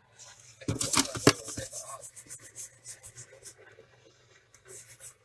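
A short clatter of sharp knocks about a second in, followed by a run of quick scratchy strokes, like something rubbed or scraped by hand.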